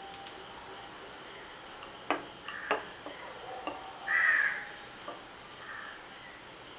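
Crows cawing several times, the loudest caw a bit past four seconds in. A few sharp knocks of a wooden rolling pin on the counter fall between about two and four seconds in.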